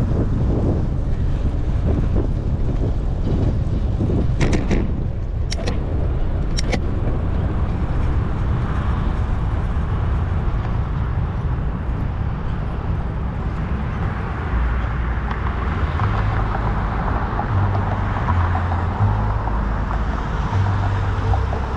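Wind buffeting a GoPro HERO9 Black's microphone while riding a bicycle through city streets, a steady rumble mixed with road and traffic noise. A few sharp clicks come about four to seven seconds in.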